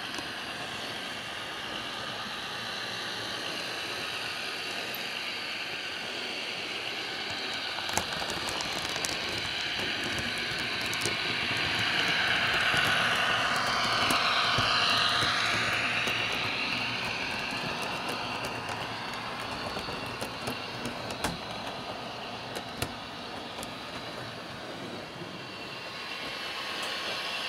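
Roco H0-scale TEE RAm model diesel railcar running past, its ESU sound decoder playing diesel engine sound through the onboard speaker, with a few sharp clicks from the wheels on the track. The sound swells as the train comes closest, about halfway through, then fades back.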